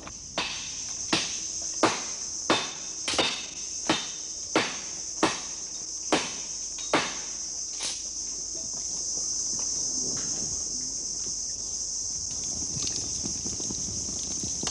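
Axe chopping wood, about a dozen evenly spaced blows roughly two-thirds of a second apart that stop about eight seconds in, over a steady high-pitched drone of insects.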